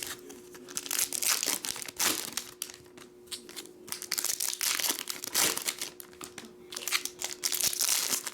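Plastic trading-card pack wrappers being torn open and crumpled, in several bursts of crinkling. A faint steady hum runs underneath.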